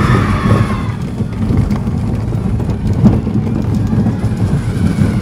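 Vekoma mine train roller coaster running along its track from on board, a steady low rumble and rattle of the train, with one sharp clunk about three seconds in.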